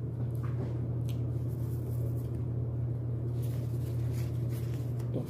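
Faint soft clicks and rustles of someone starting to eat with their hands, over a steady low hum.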